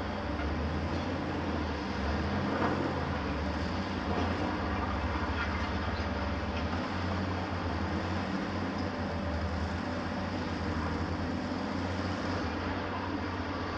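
Heavy diesel excavators and a tracked mobile crusher running together: a steady deep engine drone with a few faint knocks mixed in.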